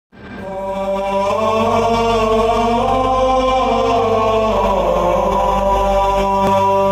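Choir chanting in long, slowly moving sustained notes over a low steady drone, fading in over the first second.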